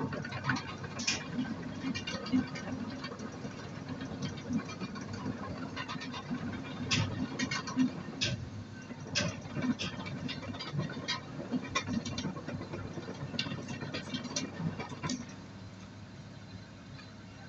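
Komatsu PC200 hydraulic excavator's diesel engine running with a steady low drone, under a string of irregular metallic clanks and knocks from the machine at work. The knocks stop about fifteen seconds in, leaving the engine drone.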